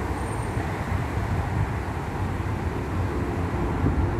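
Motorway traffic heard from about 70 metres away: a steady, loud rumble of many passing vehicles blending together, with no single vehicle standing out.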